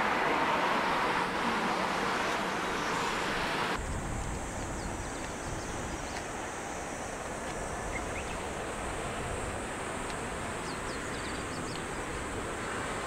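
Steady jet aircraft noise across the airport apron. After a sudden cut it gives way to quieter outdoor sound: a low rumble, a thin steady high-pitched drone and a few short bird chirps.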